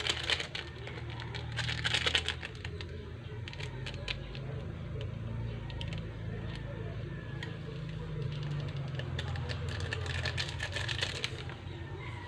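Rustling and scattered light clicks from seasoning packets and utensils being handled while the seasoning powders are mixed into pancit canton, with bursts of rustling about two seconds in and again near the end, over a steady low hum.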